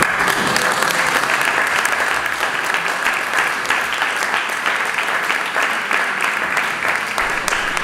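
Audience applauding steadily, a dense patter of many hands clapping at once: applause for a song that has just finished.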